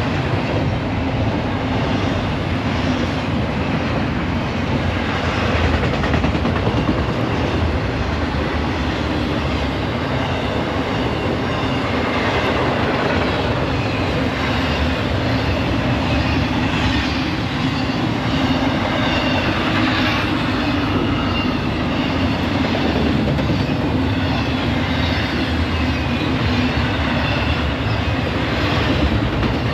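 Cars of a passing intermodal freight train, double-stack container cars and trailer-carrying flatcars, rolling by steadily. Steel wheels on the rails make a continuous rumble and rattle.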